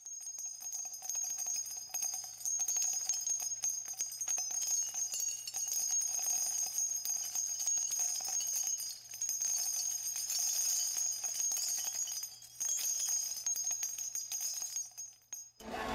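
Bell-like jingling and tinkling over a steady high ringing tone, cutting off suddenly near the end.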